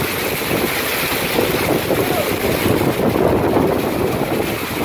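Heavy wind-driven rainstorm: a steady roar of rain pelting the pavement and parked cars, with strong wind gusts buffeting the microphone.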